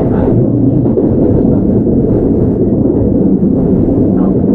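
Keihan 9000 series electric train running between stations, heard inside the car: a steady, loud low rumble of wheels on rails and car body, with no clear motor whine.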